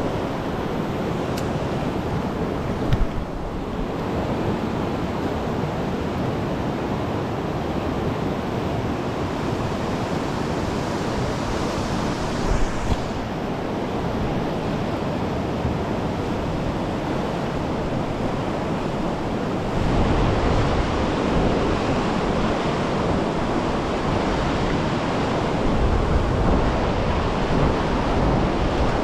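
Rushing river current over rocks and a white-water riffle: a steady, unbroken wash that grows louder and deeper about twenty seconds in, with a couple of brief knocks near the start and middle.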